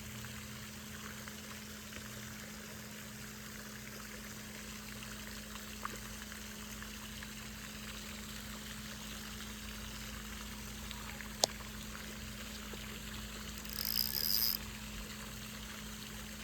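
Steady trickling, running-water noise, with a single sharp click about eleven seconds in and a brief high-pitched ringing rattle around fourteen seconds.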